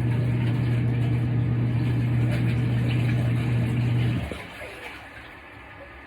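Portable twin tub washing machine's wash motor humming steadily as it agitates a load, then stopping abruptly about four seconds in.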